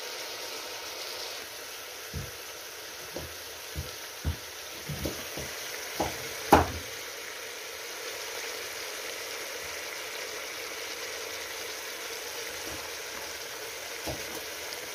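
Rabbit meat frying in oil in a qozon (kazan) with a steady sizzle. A utensil knocks against the pot about a dozen times between about two and seven seconds in, as the meat and spices are stirred. The loudest knock comes at about six and a half seconds.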